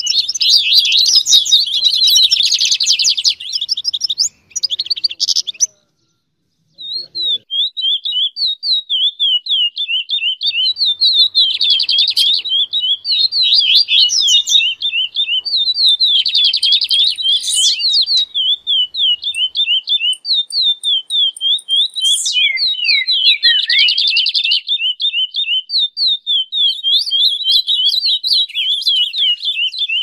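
A mix of recorded songbird song: dense, overlapping chirping and warbling, a brief dropout to silence about six seconds in, then one bird repeating quick sweeping chirps at about four a second, with bursts of fuller song over it now and then.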